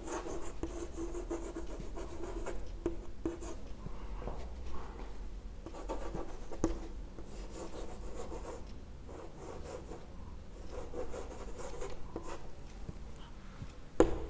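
Chalk writing on a chalkboard: irregular scratching strokes as words are written, with an occasional sharp tick as the chalk strikes the board.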